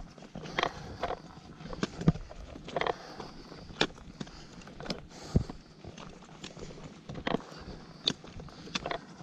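A hiker's footsteps and trekking-pole tips striking a dirt trail: uneven crunching steps and sharp clicks, roughly one a second.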